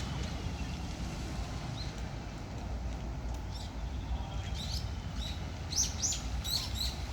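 Small birds chirping in short, high calls, coming several in quick succession in the second half, over a steady low background rumble.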